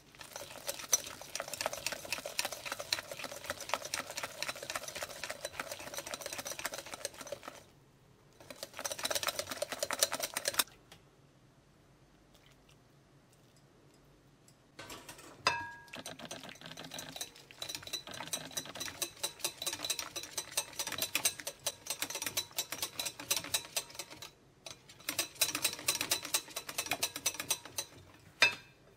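Wire balloon whisk beating egg yolks and grated pecorino in a glass bowl: its wires click rapidly against the glass, in several long bursts with a pause of a few seconds near the middle. Just after the pause, one sharper knock on the bowl rings briefly.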